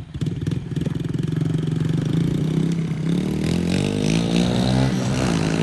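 An ATV engine running at a steady speed, then revving up and down from about three seconds in.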